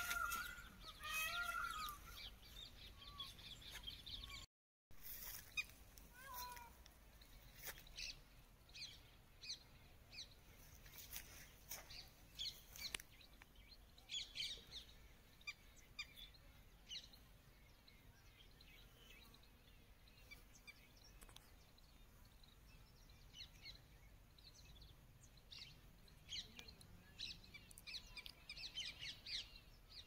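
Wild birds chirping, faint: many short high chirps and calls scattered throughout, busier near the end, with a few louder pitched calls in the first two seconds.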